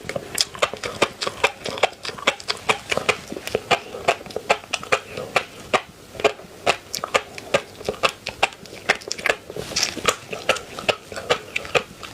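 Close-miked eating of seafood: a steady run of sharp, wet mouth clicks and smacks from chewing, about three or four a second.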